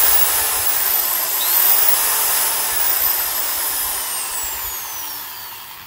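Makita HP2040 corded hammer drill running with no load at speed. Its motor and fan whine dips and recovers briefly about a second and a half in, then the trigger is let go and the drill coasts down, the whine falling in pitch and fading. The fan has fine-pitch blades and slotted vents meant to keep its whistling down, so it doesn't scream quite as much as other drills.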